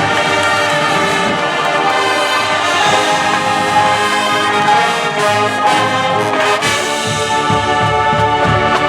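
High school marching band playing its competition show: brass (trumpets and trombones) sustaining loud chords over drums.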